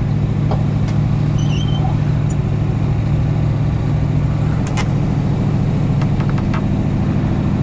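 1955 Oldsmobile 98's 324 cubic inch Rocket V8 idling steadily, heard from inside the cabin, with a few light clicks over it.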